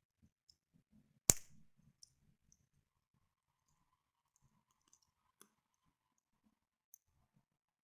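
Wood campfire crackling: scattered small pops and ticks, with one sharp, loud snap about a second in.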